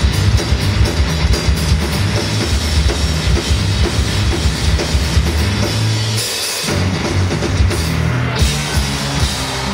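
Live heavy metal played on cellos over a rock drum kit, the drums pounding out a steady beat. The low end drops out briefly about six seconds in, then the full band comes back in.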